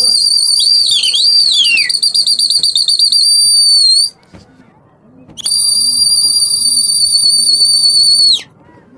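A pigeon fancier's whistle blown loud and high twice: a warbling blast of about four seconds, with a second whistle sliding down in pitch over its first half, then after a short pause a steadier blast of about three seconds that cuts off sharply.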